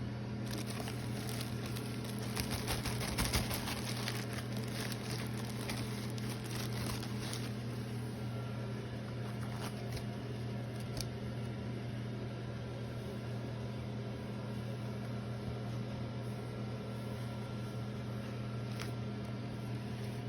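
Packaging being handled and rustled, dense crackling for the first several seconds, then only a few scattered clicks, over a steady low electrical hum.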